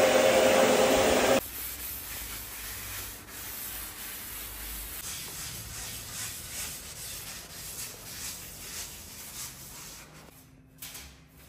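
A loud, steady motor whir cuts off abruptly about a second and a half in, followed by faint repeated rubbing strokes of cleaning.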